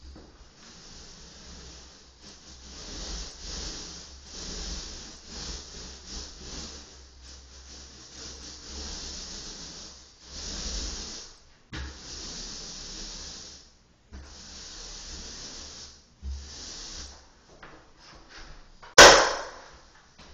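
Repeated rasping, scraping strokes against a surface, running in stretches with brief pauses, then a single sharp loud knock near the end.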